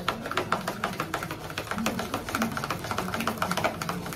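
A hair-dye tint brush working dye in a plastic bowl: rapid light clicking and scraping, several strokes a second, keeping up evenly.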